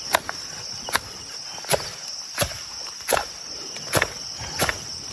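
A ferro rod struck repeatedly with a scraper to throw sparks onto tinder: seven short, sharp scrapes at an even pace, about one every three-quarters of a second. Crickets trill steadily behind.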